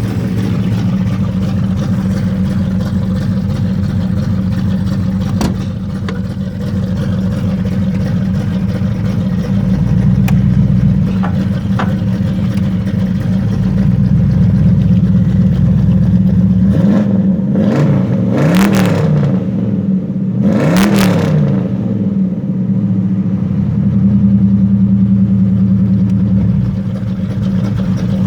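Freshly rebuilt small-block Chevy V8 in a 1985 Monte Carlo SS, running through glass-pack mufflers with a deep, steady idle. About two-thirds of the way through the throttle is blipped twice, the revs rising and falling quickly each time.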